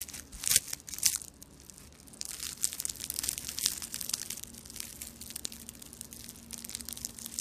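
Baked puff pastry crackling and crunching as it is torn apart by hand, its flaky layers breaking: two sharp crackles about half a second and a second in, then a run of finer crackles.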